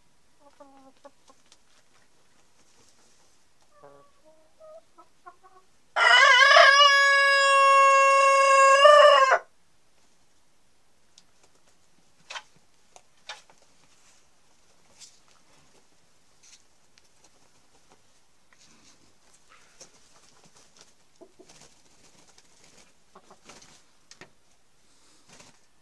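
Hen clucking softly a few times, then a rooster crowing once, a long, mostly level crow of about three seconds. After the crow, faint scattered taps and rustles.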